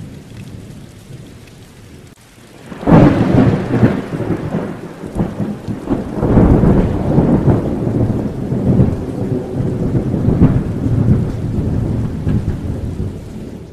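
Thunderstorm: steady rain, then a sudden loud thunderclap about three seconds in that rolls on as rumbling thunder with several swells, fading out near the end.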